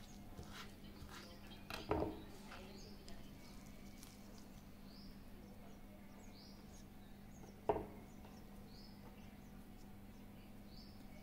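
Knife chopping mint leaves on a wooden cutting board: a few chops in the first two seconds, the loudest about two seconds in. A single knock follows about two-thirds of the way through, and a bird chirps faintly and repeatedly throughout.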